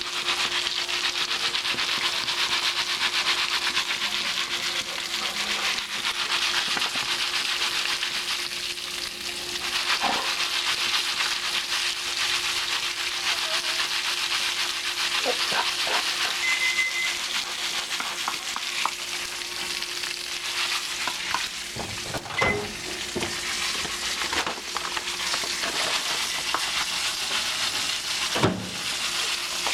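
Popcorn heating in oil, a steady sizzle with a few scattered pops as the kernels start to burst. A faint steady hum runs underneath.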